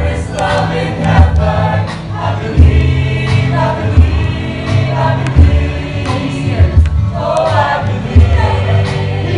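Stage ensemble singing together in choral harmony over instrumental accompaniment with a pulsing low bass.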